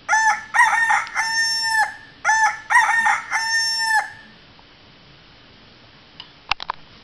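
A rooster crowing twice, each crow a couple of short rising notes and then a long held note. A few sharp clicks follow near the end.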